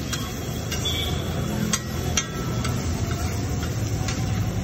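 Metal spatula scraping and clacking against a large flat iron tawa as spiced vegetables are stirred in oil, giving a few irregular sharp clicks over a steady low hum.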